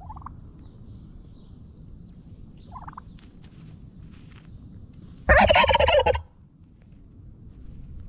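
A wild turkey gobbles once, close and loud, a rapid rattling call lasting just under a second about five seconds in. Two short rising notes come before it.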